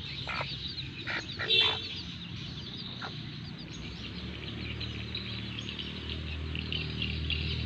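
Newly hatched brugo (junglefowl-hybrid) chicks peeping continually in small high chirps, with a few short clucks from the brugo hen in the first two seconds.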